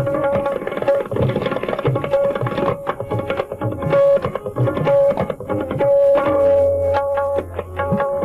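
Tabla played solo at speed: a rapid stream of ringing strokes on the right-hand drum (dayan), which holds one tuned pitch, mixed with low strokes. About six seconds in, a deep bass note from the left-hand drum (bayan) rings on for over a second.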